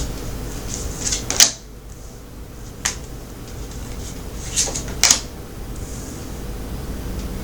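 Tarot cards being handled and laid down on a table: a handful of short, sharp flicks and snaps, over a faint steady hum.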